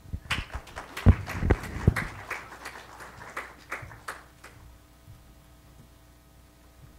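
An irregular clatter of knocks and rustling lasting about four and a half seconds, with three heavy thumps between one and two seconds in, then quiet.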